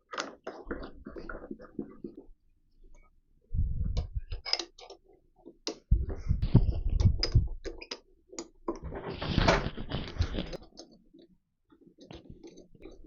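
Steel parts of a lathe rear tool post being handled and fitted together: scattered clicks and clinks of metal on metal, with a few heavier knocks and a longer scraping stretch about nine seconds in.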